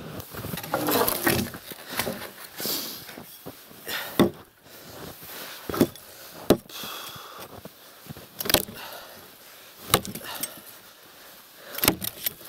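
An axe chopping into a dry, dead log: a series of sharp strikes, irregularly spaced about one and a half to two seconds apart, beginning about four seconds in. Before the strikes there are a few seconds of rustling movement.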